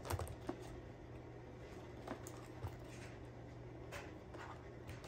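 Faint, scattered clicks and rustles of a cardboard Beyblade box and its packaging being handled and opened, with the sharpest click right at the start.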